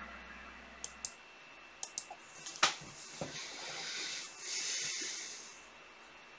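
A few sharp computer-mouse clicks, the loudest about two and a half seconds in, followed by two soft hissing sounds of about a second each.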